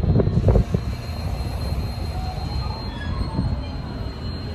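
JR East E233 series 0 electric train starting to pull out from the platform. A few loud knocks come at the start, then steady running noise with a faint traction-motor whine rising in pitch as it begins to move.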